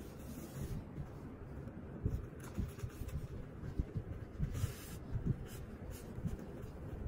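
Necktie fabric rustling, with irregular soft handling bumps as hands wrap the tie and pull it through a Windsor knot; the bumps come thicker in the middle of the stretch.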